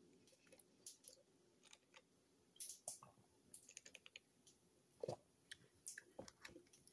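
Near silence with faint scattered clicks and small mouth sounds of someone sipping a soft drink through a plastic straw from a lidded fountain cup.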